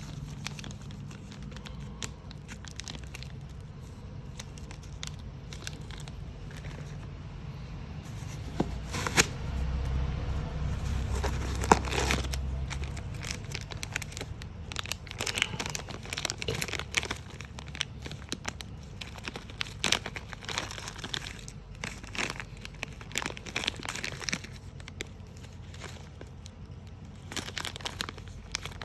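Packaging being crinkled and torn open by hand, with irregular rustles and small clicks as it is handled. A low hum swells for a few seconds around the middle.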